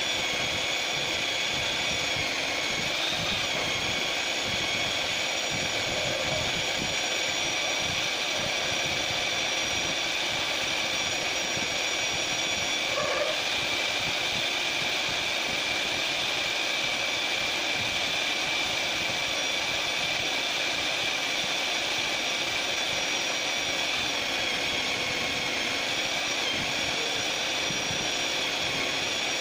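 March magnetic drill's 1400-watt motor running at its high-speed setting while a 38 mm annular cutter bores steadily through 28 mm steel plate with coolant: a steady, high-pitched whine over the grind of the cut.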